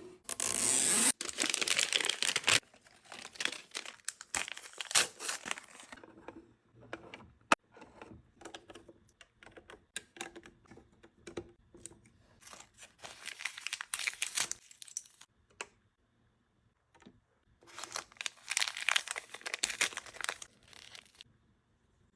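Small surprise packets being torn open and crinkled in several bursts, the first and loudest right at the start, with light clicks and taps of small pieces being handled in between.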